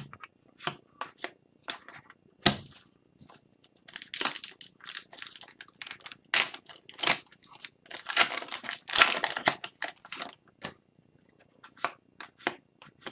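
Foil wrapper of an Upper Deck hockey card pack being torn open and crinkled, in a run of short tearing and crinkling noises that is densest between about four and ten seconds in, with trading cards handled around it.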